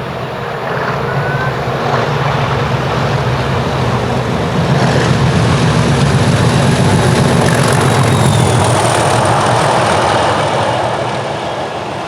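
Class 37 diesel-electric locomotive with an English Electric V12 diesel engine passing close by under power. Its engine note builds over the first few seconds, is loudest in the middle, then fades as it goes by.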